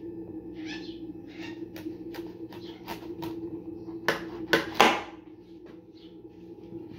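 Kitchen knife cutting through a hard pumpkin on a granite countertop: a run of short crunches and knocks as the blade goes through the rind and strikes the stone, loudest a little past halfway. A steady low hum runs underneath.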